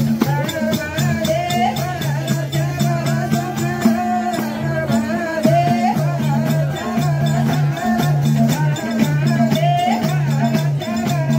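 Live Nepali lok bhajan (folk devotional song) music: a singing voice over hand drums and a steady rattling percussion, with a repeating low-pitched accompaniment.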